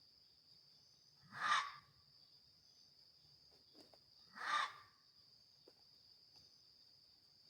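Two harsh, growling calls from an unseen animal, each about half a second long and about three seconds apart, over a steady high chirring of night insects such as crickets.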